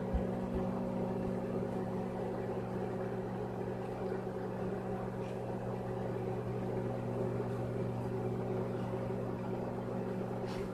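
Microwave oven running: a steady electrical hum with a whir, unchanging throughout.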